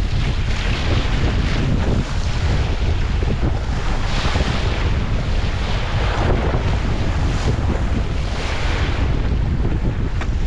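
Strong wind buffeting the microphone with a heavy low rumble, over the rushing hiss of water spraying off the hull and outrigger floats of a Hobie Tandem Island sailing kayak moving fast through choppy waves. The splashing swells every couple of seconds as the boat hits waves.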